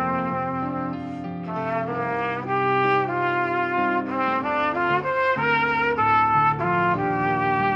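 Three trumpets playing a melody in close harmony, with sustained notes changing together, over a recorded backing track.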